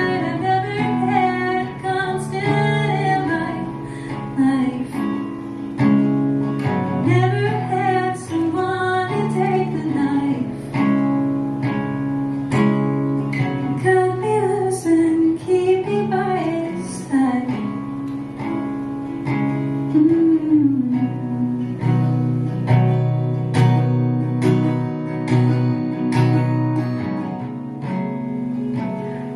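A woman singing a slow song over a strummed and plucked acoustic guitar.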